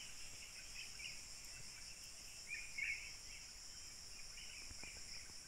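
Steady, high-pitched insect chorus, with short chirps now and then over it and a louder cluster of chirps about two and a half to three seconds in.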